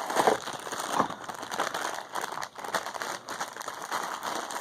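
Foil wrapper of a blind-box minifigure being crinkled and pulled open by hand, a busy irregular crackling.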